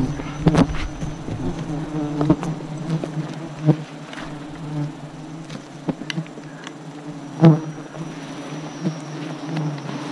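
A mass of giant honey bees buzzing around their open combs close by, a steady low hum. Scattered knocks and bumps come through it, the loudest about seven and a half seconds in.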